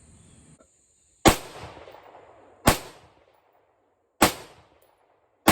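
Windham Weaponry AR-15 rifle firing four single shots in slow succession, about a second and a half apart, each crack trailing off in echo. It is loaded with Wolf ammunition that is being tested as a possible cause of the rifle's malfunctions.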